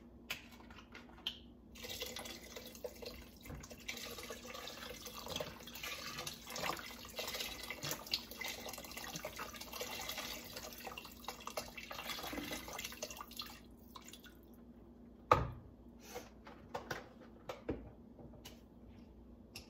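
Vegetable broth pouring in a stream from a carton into a stainless stockpot of soup, liquid splashing into liquid, for about twelve seconds before it stops. Then a few sharp knocks, the loudest just after the pour ends.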